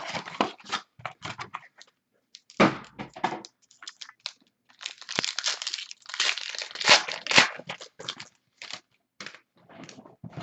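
Plastic wrapping crinkling and tearing in irregular bursts with short pauses, as a box of football trading cards is unwrapped and opened.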